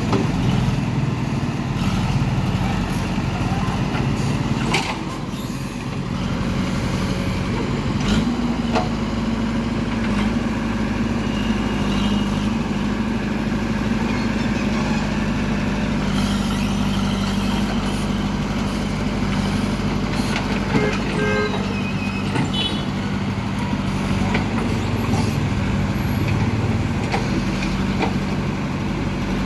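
Heavy diesel engine running steadily. Its speed steps up about eight seconds in and holds there.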